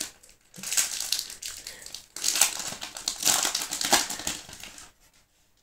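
Foil booster-pack wrapper crinkling and crackling as it is handled, in two stretches, stopping about five seconds in.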